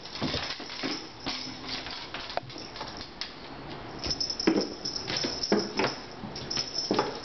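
Cats' paws thumping and scrabbling against a louvered closet door and wall, and landing on a hardwood floor: a run of irregular knocks and rattles, busiest from about four to six seconds in.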